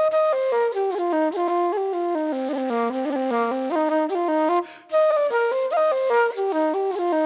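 Solo flute playing a quick melody of short, stepping notes, with a brief pause about two-thirds of the way through.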